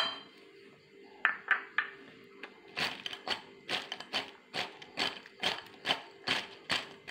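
Fried moong dal bajiyas knocking against a ceramic plate as they are tossed to coat them in chaat masala. There are a few scattered clicks at first, then from about three seconds in a steady run of light clicks, a little over two a second.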